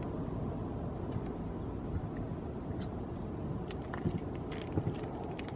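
Low, steady rumble of a distant Boeing 747-400's four jet engines as it rolls along the runway, mixed with wind on the microphone. A few faint clicks come in the second half.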